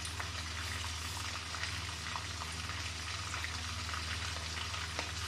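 Shrimp deep-frying in hot oil in a wok: a steady sizzle with scattered small pops and crackles. A steady low hum runs underneath.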